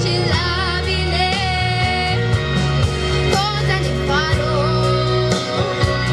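A girl singing into a handheld microphone, amplified through a PA speaker over recorded backing music with a steady beat. Her held notes waver with vibrato.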